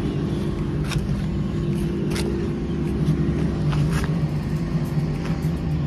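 An engine running steadily, a low even hum, with a few light clicks about one, two and four seconds in.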